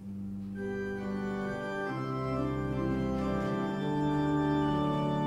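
Church organ starting suddenly and playing sustained, held chords over a deep pedal bass note, as an introduction before the congregation sings.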